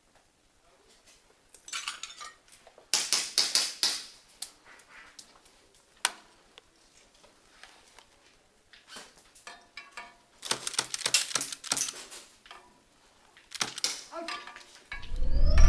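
Clusters of sharp clicking and clattering, plastic and metal, from airsoft gear being handled. A single click comes about six seconds in. Near the end there is a loud low rumble with a short rising whine.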